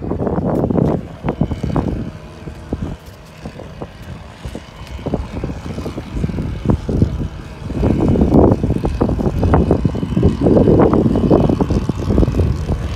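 Wind buffeting the microphone in strong gusts, a low rumbling roar with crackling, loudest at the start and again in the second half, easing off for a few seconds in between.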